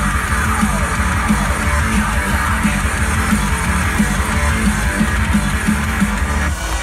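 Loud rock music with electric guitar and a steady beat, the dance routine's soundtrack, which cuts off abruptly near the end.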